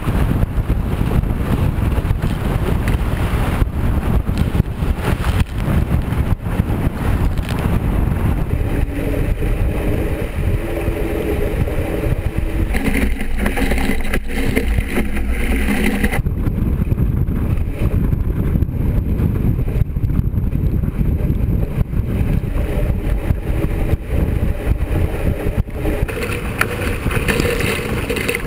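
Loud wind buffeting the microphone in a 20 mph-plus breeze, with water rushing and splashing past the hull of a Laser dinghy sailing fast.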